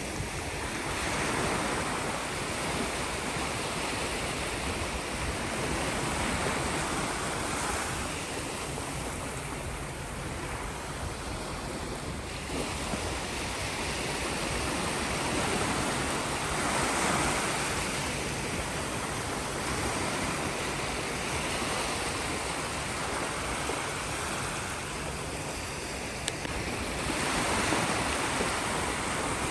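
Sea waves breaking and washing on the shore, a steady rush of surf that swells every eight to ten seconds.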